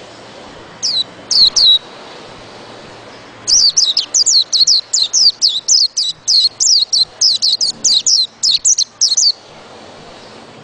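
White-eye (pleci) singing: three short falling notes about a second in, then a rapid run of high falling notes, about four a second, lasting some six seconds, over a steady background hiss.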